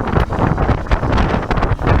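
Royal Enfield Interceptor 650's parallel-twin engine running under way, with heavy wind buffeting on the microphone.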